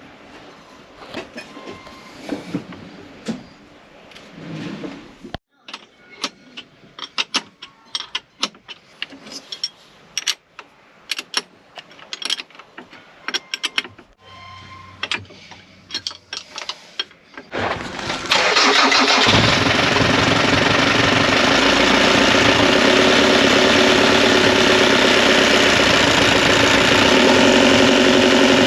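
A run of scattered clicks and knocks, then, about two-thirds of the way in, the sailboat's inboard engine starts and runs on steadily and loudly, ahead of a gear test after a new Vetus shaft coupling has been fitted.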